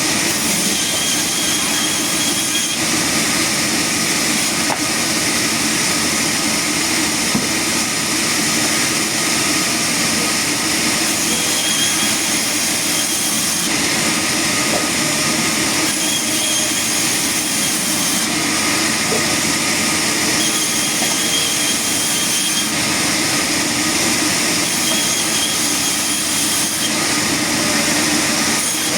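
Sawmill saw and machinery running with a loud, steady mechanical din and a faint high whine, the sound changing abruptly every few seconds.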